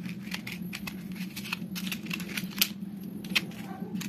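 A matchstick struck again and again against a matchbox's striking strip: a series of short, irregular scratching rasps over a steady low hum.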